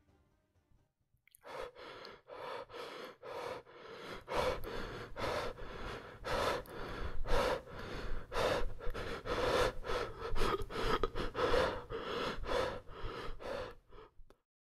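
A man panting heavily: quick, voiced gasping breaths about two a second. They start about a second and a half in, grow louder after a few seconds, and stop abruptly near the end.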